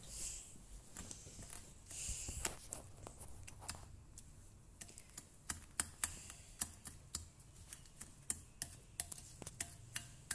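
Small metal hand whisk beating a soft butter, sugar and egg mixture in a glass bowl: quick irregular clicks of metal against the glass, coming more often in the second half.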